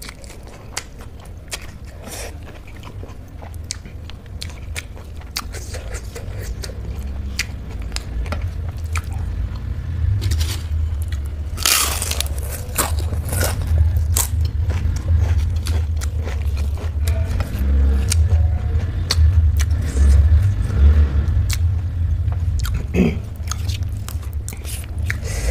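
Close-miked eating: chewing and crisp crunches, with a burst of loud crunching about twelve seconds in as a papad is bitten. Under it, a low rumble from motorbikes with blown silencers grows louder from about eight seconds in.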